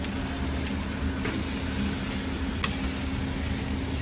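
Chicken pieces sizzling on a charcoal grill over hot coals, with a couple of faint sharp clicks, over a steady low hum.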